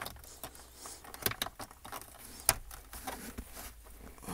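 Scattered light plastic clicks and taps from a hand pressing the USB hub adapter plate and console trim into place in the center console cubby, with one sharper click about two and a half seconds in.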